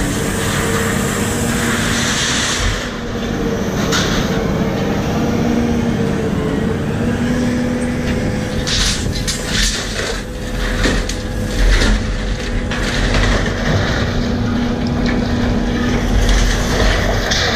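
Scrap-yard crane with a lifting magnet at work: its engine and hydraulics running with a steady hum, and scrap metal clanking and rattling several times in the middle.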